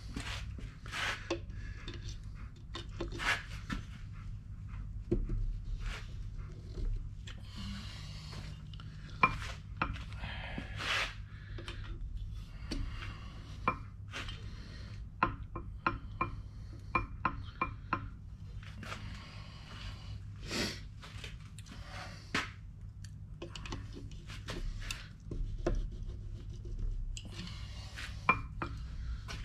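Wrench clinking and scraping on the bearing adjusters of a Ford 9-inch differential carrier as the ring-gear backlash is set. Irregular sharp metal clicks and short rubbing strokes throughout, over a low steady hum.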